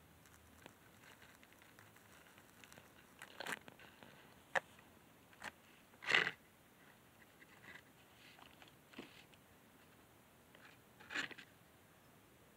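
Faint handling noise: scattered short clicks and brief rustles over a quiet background, with a sharp click about four and a half seconds in, the loudest rustle about six seconds in and another about eleven seconds in.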